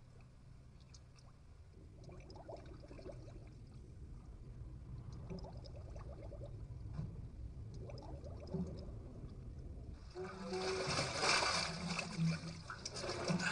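Muffled underwater rumble in a bathtub, then from about ten seconds in loud water sloshing and splashing in the tub.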